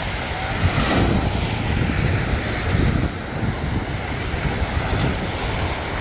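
Small waves washing onto a sandy beach, a steady surf hiss, with wind buffeting the microphone in a fluttering low rumble.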